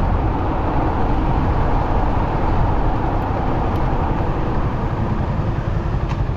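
Yamaha XSR155 single-cylinder motorcycle running steadily under load on an uphill climb, buried in a dense, even rush of road and wind noise.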